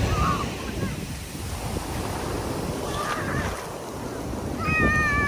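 Ocean surf washing up onto a sandy beach and drawing back: the wash is loudest at the start, eases off, and swells again near the end. A faint held high call sounds about three seconds in and again, louder, near the end.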